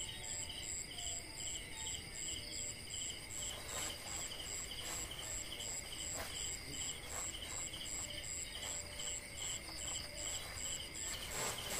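Night insects, crickets, chirping in quick, evenly repeated pulses, about three a second. A few faint knocks and rustles come from objects being handled close by.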